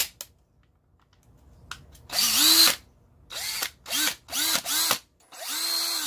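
DeWalt 18-volt cordless drill/driver, running on a 20-volt battery pack through an adapter, is triggered six times. Its motor spins up to a steady whine and winds down each time: a longer run, four short bursts, then another longer run. A sharp click comes at the very start.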